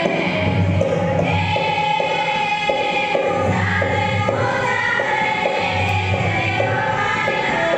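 A group of girls singing together, accompanied by a harmonium and a dholak drum keeping a steady beat.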